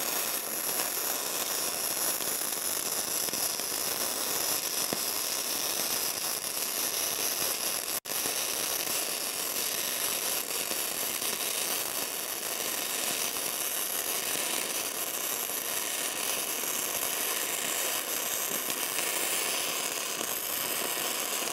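WR0-250 gasless flux-cored wire welder running a fillet weld on steel plate: the arc sizzles steadily. About 8 seconds in it breaks off for a moment, then carries on.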